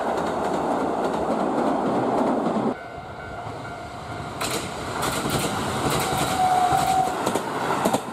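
A train rumbling across a steel girder bridge, cut off suddenly about a third of the way in. Then passing trains, their wheels clicking repeatedly over rail joints, with a brief steady tone in the middle of the clicking.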